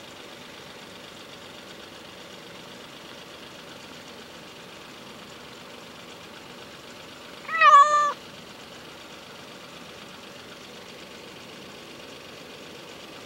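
Ginger stray cat meowing once, a single short call about halfway through that rises in pitch and then holds.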